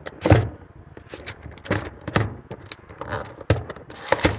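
Handling noise: a small cardboard parts box being moved and set down on a plastic table, with a series of short knocks and rustles. The loudest knock comes about a third of a second in.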